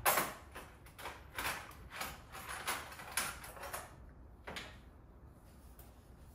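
Quick, rhythmic scraping strokes in a kitchen, about two a second for some four seconds, then one more after a short pause.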